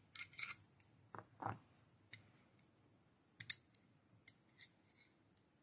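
A few faint, irregular clicks and taps from the small metal and plastic parts of a partly disassembled Maxace Neptune out-the-front knife as it is handled during reassembly.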